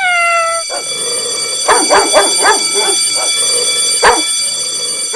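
A dog gives a short falling yelp, then barks repeatedly in sharp single barks, with a cluster of quick barks near the middle. A steady high-pitched whine runs underneath.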